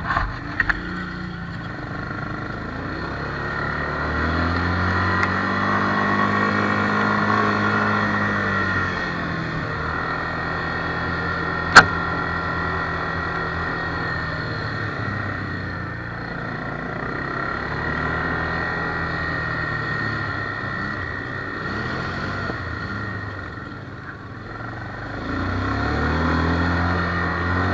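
Quad bike (ATV) engine running, its pitch rising and falling in several long swells as the throttle is opened and eased off. A single sharp knock comes about twelve seconds in.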